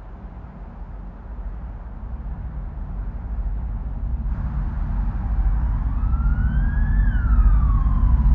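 Low rumble of city ambience swelling steadily louder, with an emergency-vehicle siren wailing up in pitch and then back down over the last few seconds.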